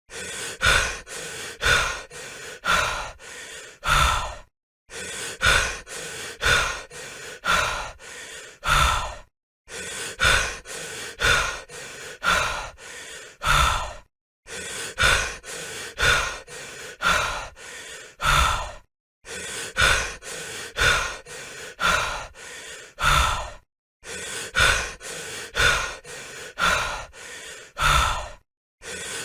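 A person breathing heavily and fast, quick loud breaths about one every two-thirds of a second. The breaths come in runs of about six, each run cut off by a short silent break and then starting over about every five seconds, the same stretch repeating.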